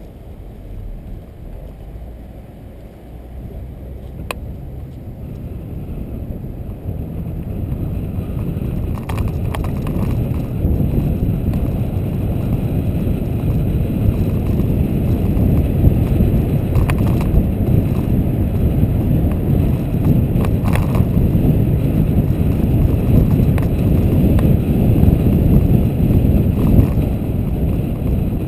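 A car driving, heard from a camera mounted on it: a steady rumble of road and wind noise that grows louder over the first dozen seconds as the car picks up speed, then holds, with a few faint ticks or rattles.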